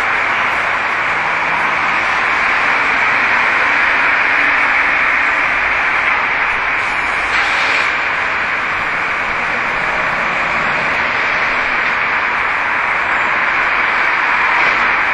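Steady, loud hissing noise with no clear pitch or rhythm, and a brief sharper hiss about halfway through.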